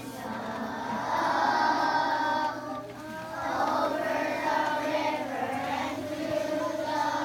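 A large group of young children singing together, with a short dip between phrases about three seconds in.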